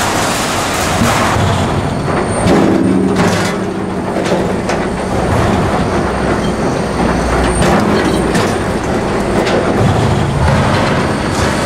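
Log-handling machinery of a wood-processing line running: a chain conveyor carrying logs, with a steady mechanical rumble and clatter and now and then the knock of a log or metal part.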